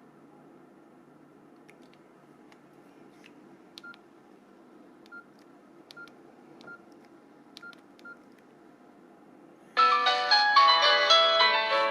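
Nokia E65 keypad being pressed, each press giving a soft click and a short beep, a few seconds apart. About ten seconds in, loud melodic music of quick plucked-sounding notes starts suddenly.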